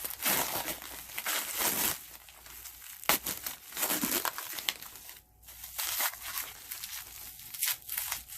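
Plastic wrap being crinkled and torn apart by hand while unwrapping a package, in irregular rustling bursts with a few sharp crackles.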